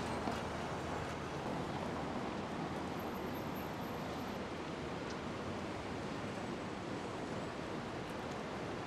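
Steady outdoor ambient noise, an even hiss with no distinct sounds standing out.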